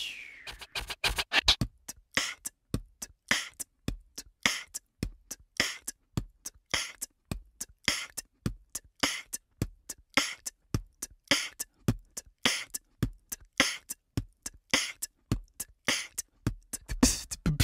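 Background music: a sparse drum beat with a sharp hit about once a second and lighter ticks in between, with no melody.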